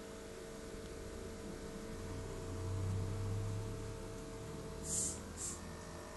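Steady electrical hum of aquarium equipment running. A low rumble swells and fades in the middle, and two short high hisses come near the end.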